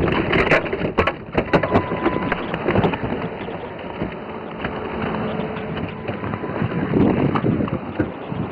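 Road and wind noise of a police cruiser driving in pursuit, a steady rushing haze. Scattered sharp clicks come in the first few seconds, then thin out.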